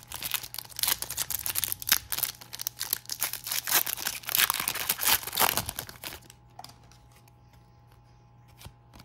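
Foil wrapper of a Topps trading card pack crinkling and tearing as it is ripped open by hand, for about six seconds. It then falls quiet apart from a couple of faint clicks.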